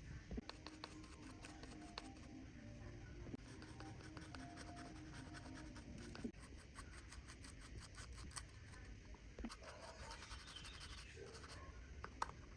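Small hand tools scratching and scraping on watch parts, with many light, irregular clicks.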